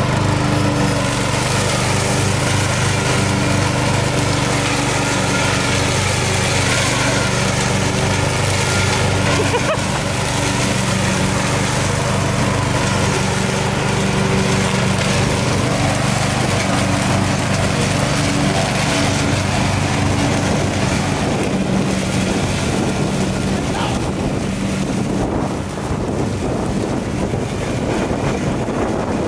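Poulan Pro riding lawn mower's engine running steadily under load as it cuts tall grass. The engine note grows fainter in the last several seconds as the mower drives away.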